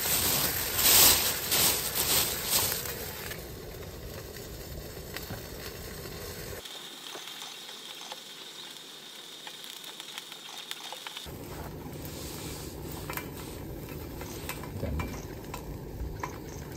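Sausages sizzling in a frying pan on a small canister gas stove. The hiss is loudest in the first three seconds, just after they go into the pan, then settles to a quieter steady sizzle.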